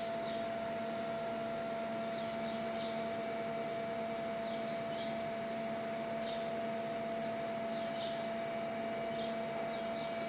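Steady mechanical hum of factory machinery, holding several fixed tones, with faint short high chirps coming and going about once a second.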